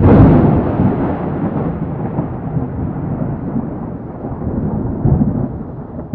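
A sudden loud crash followed by a long, rolling rumbling noise that slowly fades, swelling once more about five seconds in.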